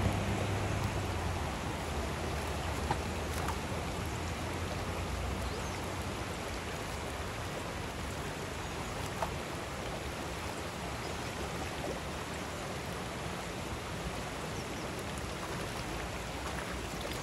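Shallow rocky stream running over stones: a steady, even wash of rippling water, with a brief low rumble in the first second or so.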